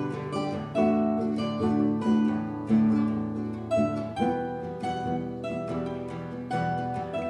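Instrumental background music of plucked strings, notes picked one after another and left to ring.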